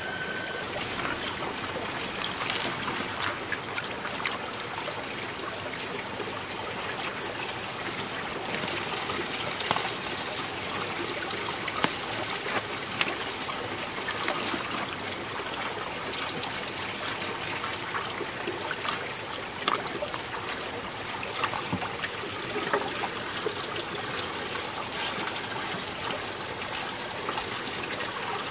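Water trickling and splashing steadily, with scattered small clicks.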